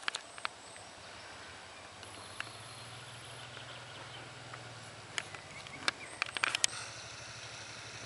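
Honda XRV650 Africa Twin's V-twin engine running out of sight behind a rise in the trail as the bike approaches, a faint low drone. A few sharp clicks in the second half.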